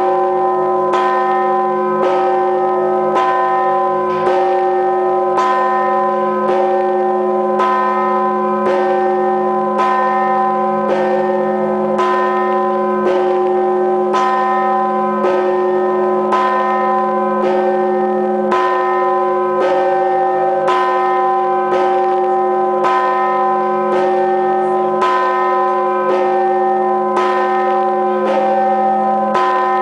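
The All Saints church bell of the Kyiv Pechersk Lavra tolled at a steady pace of about 54 strikes a minute. Each strike rings on into the next, so the bell's hum never dies away between strokes.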